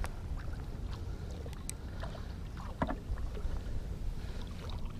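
Steady low rumble aboard a small fishing boat, wind and water against the hull, with scattered light clicks and one louder knock about three seconds in.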